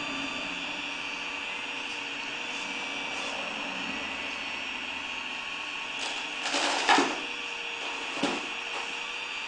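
Electric drive motors of a 1/16-scale Bruder Caterpillar RC excavator whining steadily, with two brief louder scraping noises about two-thirds of the way through, the second shorter.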